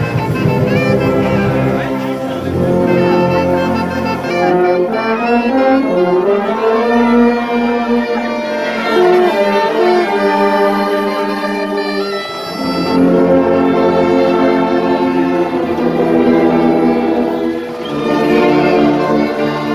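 Brass band of euphoniums and tubas playing a slow tune in long held chords. The low bass parts drop out for several seconds in the middle and come back in.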